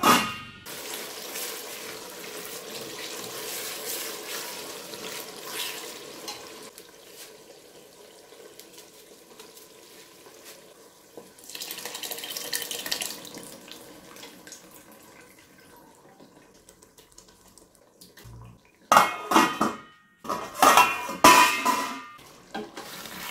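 Cooking with steel pots on a gas stove: a steady hiss over the first several seconds, liquid poured into a pot of tomato stew about halfway through, and loud clattering of metal pots and a spoon near the end.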